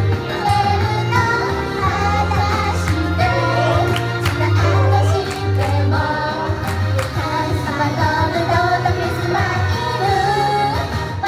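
Pop song with female voices singing over a steady bass line.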